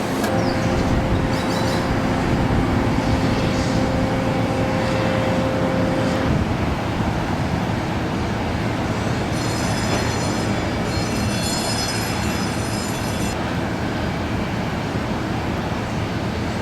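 Steady, loud mechanical rumble with a constant hum that stops about six seconds in, and a high hiss that comes in for a few seconds in the second half.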